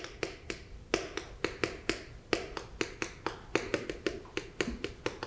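Chalk writing on a chalkboard: a quick, irregular run of sharp taps, about four or five a second, as each stroke is put down.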